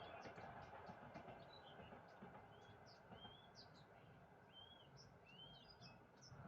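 Faint chirping of small songbirds: short arched whistled notes and quick high chips, repeating about once a second over a steady background hiss.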